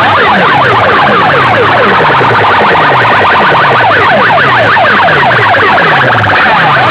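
A stack of DJ horn loudspeakers blasting a very loud electronic siren-like sound effect. It is made of falling pitch sweeps, a low one repeating about twice a second under faster overlapping sweeps higher up.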